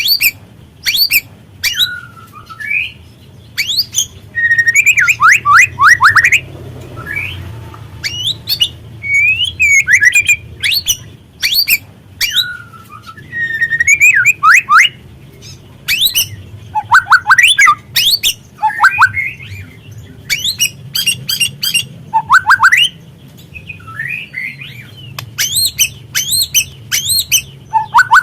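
Juvenile white-rumped shama (speckled 'trotol' murai batu) calling: rapid harsh crackling chatter mixed with short whistled notes that slide downward, repeated again and again, over a low steady hum.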